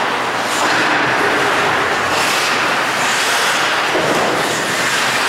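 Steady, noisy din of ice hockey play on an indoor rink, with skates scraping and carving the ice.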